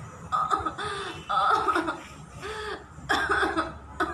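A woman's short, repeated non-speech vocal sounds, laughter-like cries, each arching up and down in pitch, about one a second.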